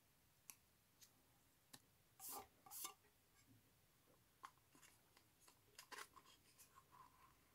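Faint handling noise from hands on a plastic bass reflex tube and its wires: a few small clicks, two short rustles a little over two seconds in, then scattered light ticks.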